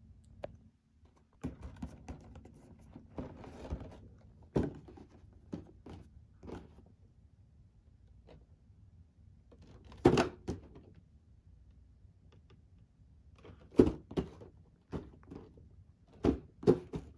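A cardboard figure box being handled and turned over in the hands: scattered dull thunks and knocks, with a stretch of scraping and rustling about two seconds in. The sharpest knocks come about ten seconds in and near the end.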